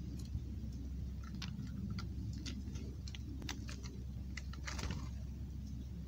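Irregular sharp clicks and taps, about a dozen over a few seconds, from a blue jay landing on gravel and picking among peanuts, over a steady low rumble.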